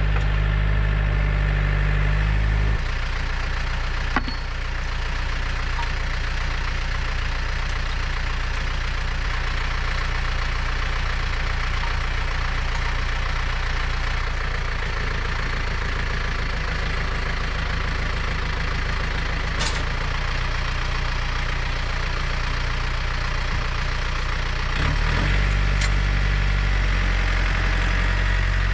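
Excavator's diesel engine running steadily while digging; its note changes about three seconds in and changes back near the end, with a sharp click about four seconds in.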